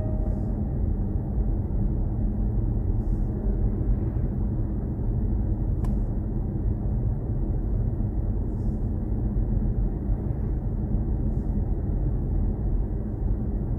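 Steady low rumble of a car driving at a constant speed, heard from inside the cabin: road and engine noise with no change in pace.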